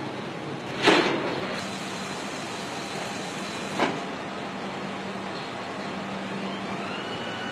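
Foundry casting machinery running with a steady industrial hum. A loud, sharp burst comes about a second in and a shorter one near four seconds. A motor whine rises and then holds near the end.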